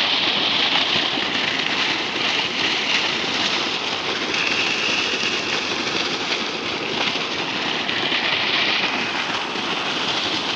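Water gushing steadily from a solar-powered irrigation pump's discharge pipe and splashing into a channel.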